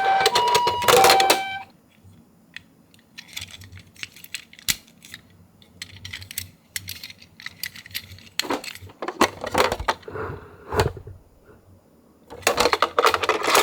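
A toy ambulance's electronic two-tone hi-lo siren alternates for the first second and a half or so, then cuts off. After that comes light clicking, tapping and rattling of hard plastic being handled, with louder bursts of clatter near the middle and again near the end.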